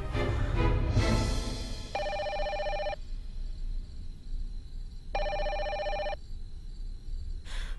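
Landline telephone ringing twice, each ring about a second long and about three seconds apart. Music fades out over the first couple of seconds.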